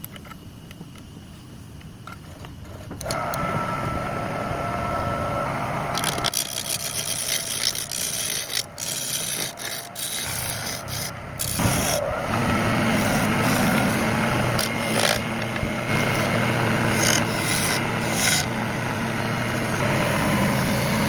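Wood being scraped and rasped by a tool as a wooden plate is shaped. It starts about three seconds in and grows louder, and in the second half a steady low hum runs under the scraping.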